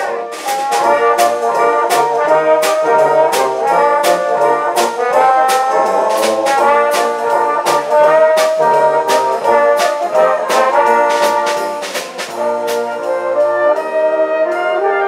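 Brass band playing a tune: held brass chords and melody over a steady beat of percussion hits.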